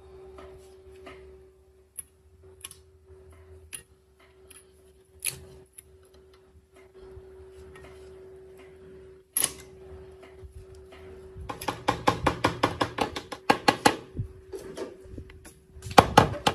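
Metal parts of a rusty sewing machine being handled and worked on: scattered clicks and clinks, a sharp knock about nine seconds in, then a fast run of metal taps, about ten a second, for a couple of seconds. A steady hum runs underneath.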